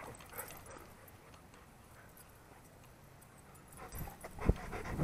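A dog sniffing and breathing right at the microphone near the end, with one sharp thump about four and a half seconds in; before that, only quiet background.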